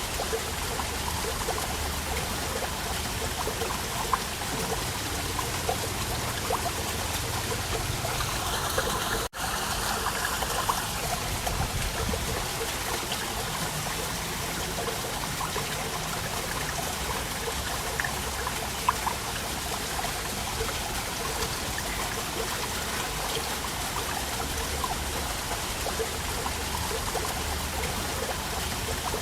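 Waterfall: water falling and splashing in a steady, even rush with small trickles and drips through it. A momentary dropout about nine seconds in.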